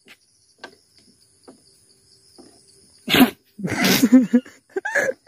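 A few faint clicks, then about three seconds in a man suddenly breaks into loud laughter, with short breathy laughs that rise and fall in pitch.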